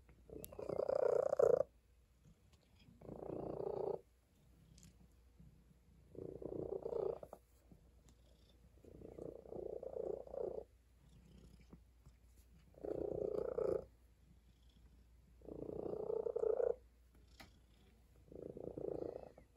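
Tabby cat purring while being stroked, swelling into a loud stretch of a second or so about every three seconds and falling to a faint rumble between.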